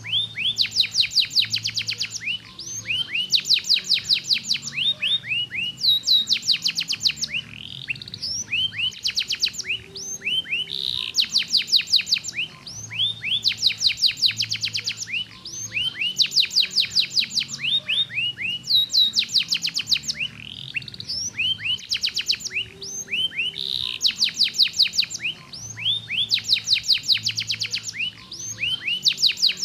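Domestic canary singing continuously: fast trills of rapidly repeated high notes, changing to a new tour every second or two with barely a pause between.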